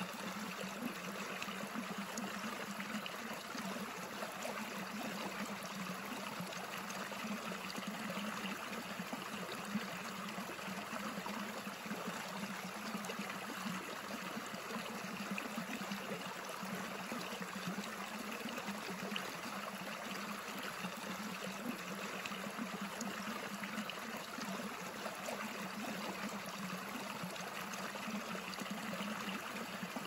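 Stream water flowing steadily without a break.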